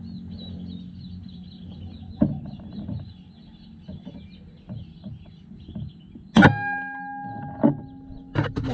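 An air rifle shot about six seconds in: a sharp crack followed by a ringing tone that fades over about a second, with a smaller crack a second later and a few clicks near the end. Before the shot there is a high repeated chirping in the background.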